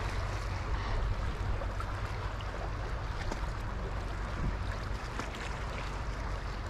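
Steady wind rumble on the microphone mixed with the wash of moving water.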